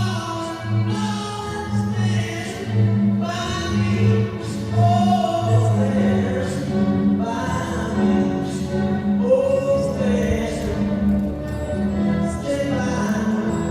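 Music: a choir singing over a steady, evenly repeating low bass pulse.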